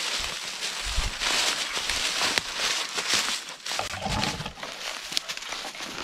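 Footsteps of a hiker pushing through dry forest litter and brush, with constant crackling and rustling and two heavier thudding steps, about a second in and about four seconds in.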